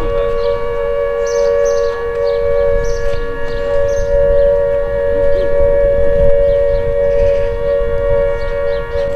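Air-raid siren sounding a steady two-note chord at constant pitch, with no rising or falling wail, the pattern of the wartime all-clear signal.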